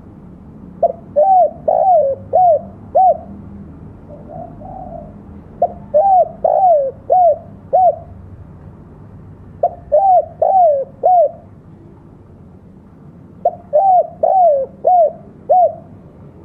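Spotted dove (tekukur) cooing in repeated phrases: four phrases of about five notes each, one starting roughly every four seconds. Each phrase ends in two separate closing notes, the 'kuk dua' call type.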